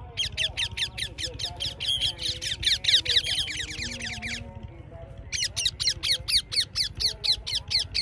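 Ringneck parakeets screeching in flight: a rapid series of shrill, falling calls, about six a second, in two bouts with a short break about halfway.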